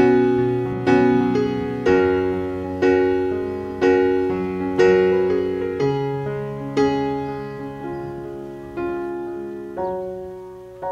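Background piano music: soft chords struck about once a second, each ringing and fading before the next.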